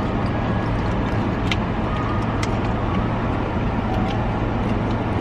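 Steady hum of a car engine idling, heard inside the cabin, with a few faint clicks of chewing.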